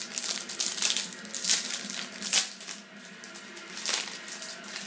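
Foil trading-card pack wrapper being torn open and crinkled by hand, in irregular crackling bursts, loudest about a second and a half and two and a half seconds in.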